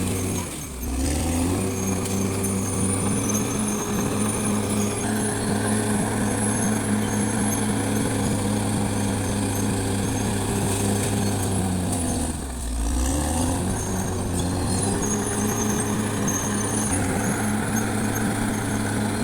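Caterpillar D6R XL bulldozer's diesel engine running steadily, its pitch and loudness dipping briefly and then recovering twice, about a second in and again about two-thirds of the way through.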